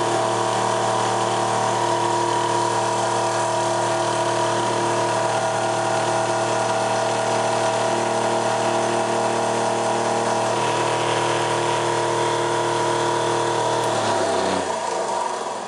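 Electric drive motor spinning a car alternator on a test bench, a steady hum with a whine above it. About fourteen seconds in it is switched off and winds down, the pitch falling as it coasts to a stop.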